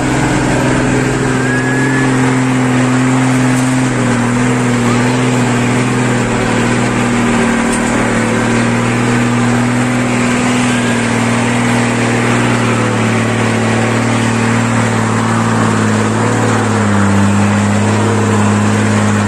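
Truck diesel engine running steadily under load, a deep even drone that slowly sinks in pitch and drops to a lower note near the end.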